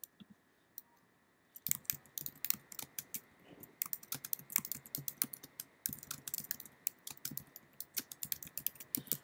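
Typing on a computer keyboard: a few stray key clicks, then about a second and a half in a fast, uneven run of keystrokes with short pauses, as a phrase is typed.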